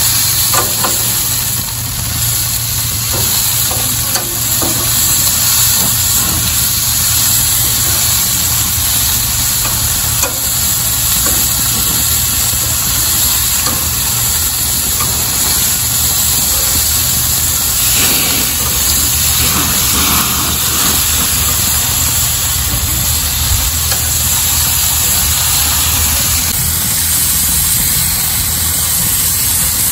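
Food sizzling steadily in hot fat on the cooker, with a steady low engine-like hum underneath.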